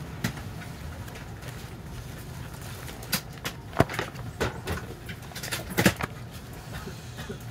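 Steady low hum inside a stationary 681 series limited express car, with a cluster of sharp clicks and knocks near the middle.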